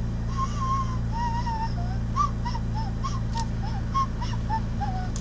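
A person whistling a tune of short, wavering notes over the steady low drone of the McLaren 570GT's twin-turbo V8 inside the cabin.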